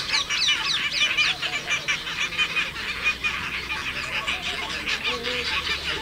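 A flock of Asian openbill storks calling: many short, falling calls overlapping, thickest in the first second or so and then going on more loosely.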